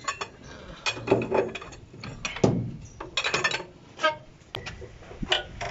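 Clinks and knocks of a metal lug wrench and socket on wheel nuts as the lug nuts of a truck's rear wheel are snugged down, not fully tightened.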